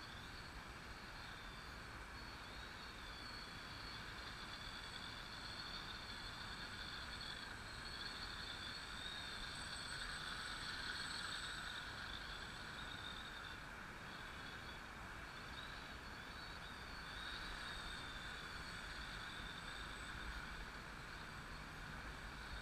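Drone's electric motors and propellers running steadily in flight: a high whine that wavers slightly in pitch over a broad rushing hum.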